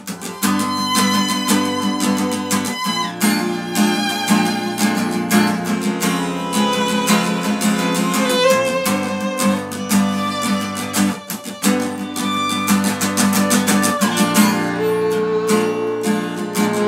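Acoustic guitar strummed in a quick, steady rhythm with a violin bowing the melody over it: a live duo playing an acoustic song.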